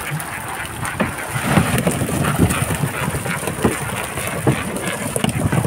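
A catch of small fish being emptied from a net into a boat's fish hold: the heap of fish flapping, with many irregular slaps and knocks and the wet net rustling.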